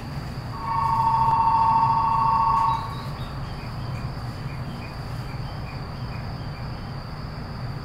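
A loud, steady two-tone signal sounds for about two seconds over the low hum of an E233-5000 series train standing at a platform with its doors open. After it stops, crickets chirp faintly and evenly.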